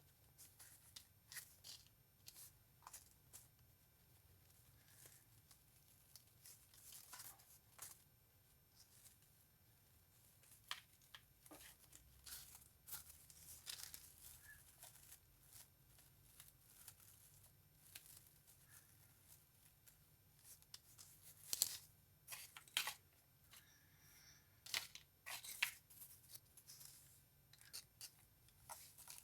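Faint, scattered rustling and clicking of artificial flowers being handled and pulled apart for a craft, with a few sharper clicks in the second half.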